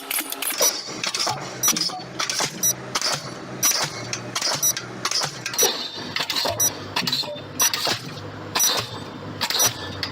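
Background music with a steady beat: a sharp percussive hit about once a second with lighter hits between, and a pulsing bass line that comes in about a second in.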